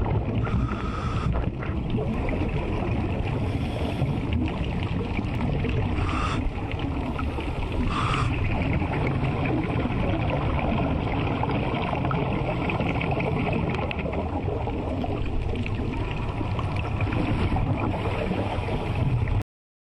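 Steady rushing, rumbling underwater noise, with two brief higher-pitched sounds about six and eight seconds in. It cuts off suddenly near the end.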